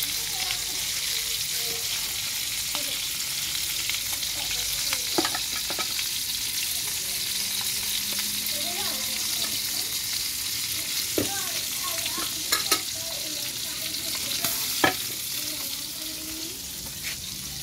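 Whole fish frying in hot oil in a metal wok: a steady sizzle with a handful of sharp pops through the middle.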